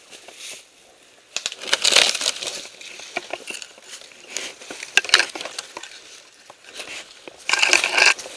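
Crunching and rustling of dry brush and leaves underfoot, with gear rubbing close to the microphone, in loud bursts about two seconds in, around five seconds and near the end.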